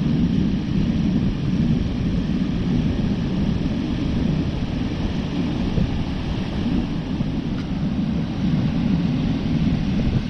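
Strong wind buffeting the microphone as a steady, uneven low rumble, with heavy surf breaking on the beach under it.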